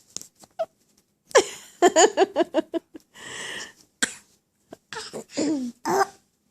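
A baby's fake coughs and throaty little vocal sounds, in several short bursts separated by pauses.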